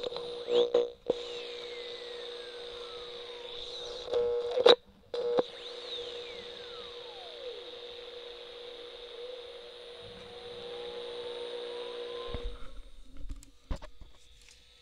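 Circuit-bent radio's speaker putting out a steady electronic drone with a hiss over it, slow whistles gliding down and then up in pitch, and loud crackles and pops as clip leads are touched to the circuit board. The output cuts out about twelve seconds in.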